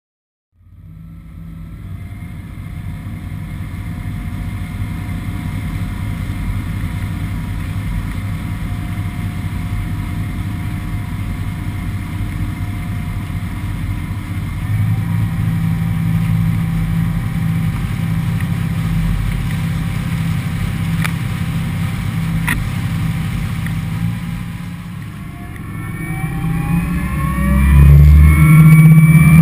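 Yanmar 370 hp V8 diesel of an XO 270 RS powerboat running hard at speed over the rush of water past the hull. Near the end it eases briefly, then revs up, rising in pitch and getting louder.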